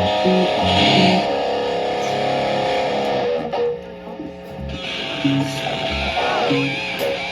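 Live band playing: electric guitar chords ringing out over bass and drums. A long held chord gives way to shifting notes about three and a half seconds in.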